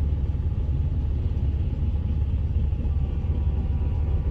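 Freight train of autorack cars rolling steadily past a grade crossing, a continuous low rumble heard from inside a car. Faint steady high tones come in about three seconds in.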